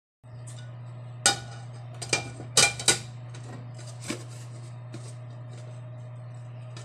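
A frying pan and plate clank and knock against each other and the stove as a pasta frittata is turned out of the pan. There are a handful of sharp clanks: a loud one about a second in, a quick cluster near three seconds, and a lighter knock around four seconds. A steady low hum runs underneath.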